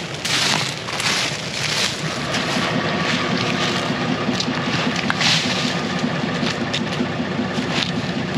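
For about the first two seconds, wind hiss; then a vehicle engine idling steadily, with a few sharp snaps and scrapes of dead pine branches being dragged off a sandy trail.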